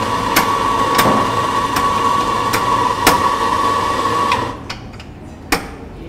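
Espresso coffee grinder running with a steady whine, with a sharp click about every two-thirds of a second, and stopping about four and a half seconds in. One more sharp knock comes near the end.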